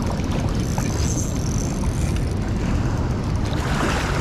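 Steady rumble of wind on the microphone over running river water, with a splash near the end as the hooked fish thrashes at the surface by the bank.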